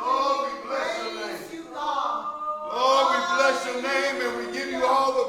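A man's voice singing, with other voices joining in, some notes held for a second or more.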